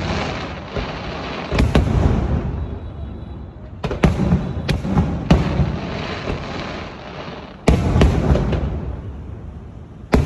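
Fireworks display: aerial shells bursting in clusters, several sharp bangs every few seconds, each followed by a long low rumbling echo.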